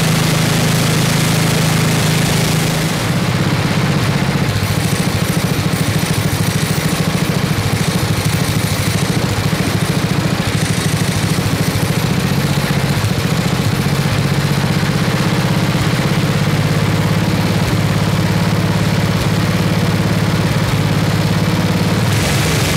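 The 8 hp Briggs & Stratton single-cylinder engine of a 1979 Toro 826 snowblower runs steadily on a test run after its governor linkage was adjusted. The engine has been brought back to life after sitting unused a long time. Its note changes about three seconds in.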